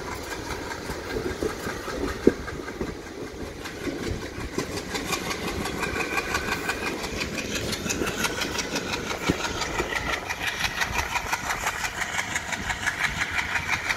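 Express train coach gathering speed: wheels clattering over rail joints and points, the clatter getting louder and quicker about halfway through, over a steady running hum.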